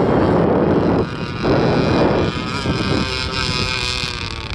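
Wind buffeting the microphone, and, as the gusts ease about two seconds in, the high, wavering whine of a 26cc Zenoah two-stroke gasoline engine driving a 1/8-scale RC hydroplane boat on the water.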